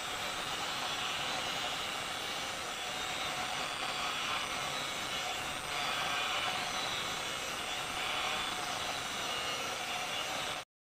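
Handheld angle grinder running with its disc grinding the steel of a kukri blade: a steady whine over a grinding hiss. The sound cuts off abruptly just before the end.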